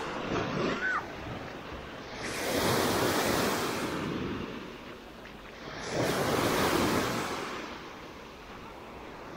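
Small Black Sea waves washing up onto a sandy beach, the wash swelling twice, each surge lasting about two seconds.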